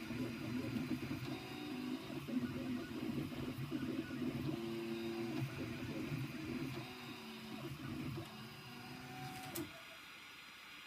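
Prusa i3 Mk2 3D printer's stepper motors whining in short steady tones that keep changing pitch as the print head makes its last moves of the print. Near the end a sharp click comes and the motor whine stops, leaving a steady hiss.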